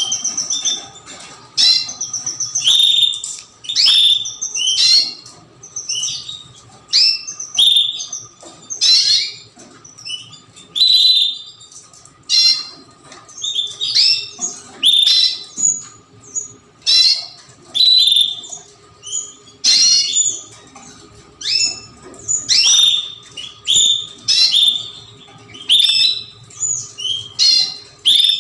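Young domestic canaries chirping and calling in a dense, continuous run of short, sharp trilled notes, one or two every second.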